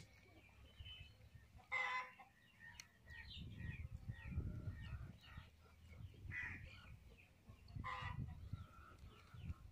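Chickens clucking in short, sharp calls: once near the start and twice more later. A low rumbling noise runs in between.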